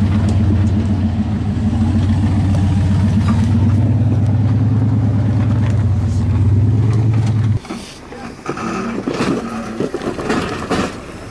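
Off-road rock crawler's engine running steadily at low crawling speed close by, a deep drone that cuts off suddenly about seven and a half seconds in. After that come quieter, irregular knocks and clicks, like tyres working over rock.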